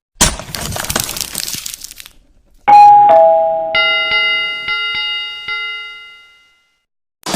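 Subscribe-button sound effects: a crackly rush of noise for about two seconds, then a two-note falling "ding-dong" chime, then a notification bell struck about four times and ringing out.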